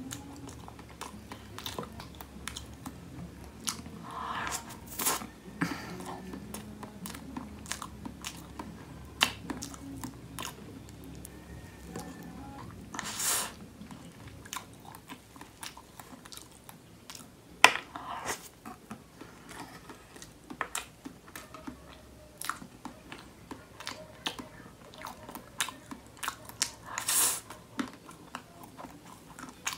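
Close-miked chewing and wet mouth sounds of someone eating soft ube cake, with many small sharp clicks and a few louder moments about four, thirteen and twenty-seven seconds in.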